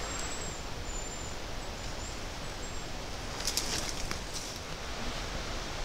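Wind rushing through leafy brush, with a thin, very high hazel-grouse whistle in the first couple of seconds: one longer note followed by shorter broken ones. A little past the middle comes a short spell of crackling and snapping twigs as the brush is pushed through.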